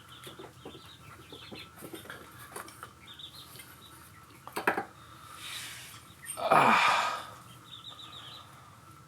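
Metal clutch parts of a motorcycle engine clicking and clinking as the clutch center and washer are worked off the shaft, with a sharp click about halfway through and a louder scrape-like burst soon after.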